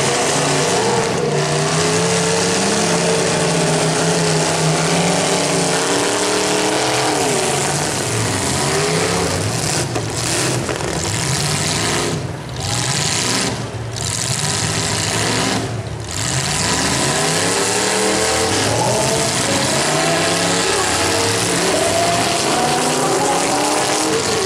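Several demolition derby car engines revving up and down over one another, loud and continuous, with brief dips in level about halfway through.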